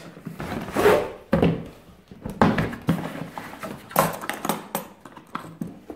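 Hard plastic tool case sliding out of a cardboard box and being set down, with a string of thunks and scrapes. About four seconds in comes a sharp click as its metal latch is snapped open.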